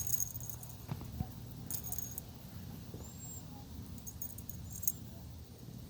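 Light metallic jingling in a few short bursts, over a low steady hum.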